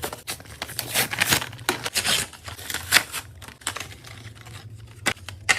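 Packaging of a tattoo pen set being handled and opened: crinkling and rustling mixed with a run of sharp clicks and taps.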